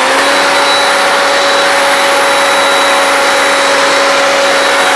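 Leaf blower running steadily with a high whine.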